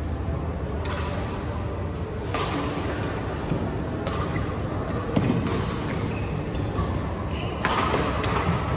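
Badminton racket strikes on a shuttlecock during a rally, about six sharp hits spaced one to two seconds apart, one of them a jumping smash about four seconds in. The hits echo briefly in a large sports hall over a steady background hum.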